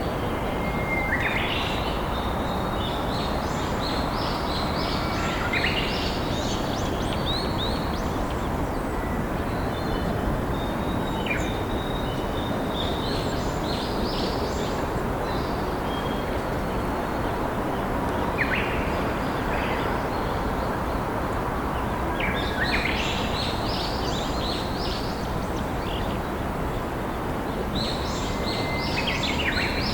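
Steady rush of a flowing river, with wild songbirds singing short phrases every few seconds over it.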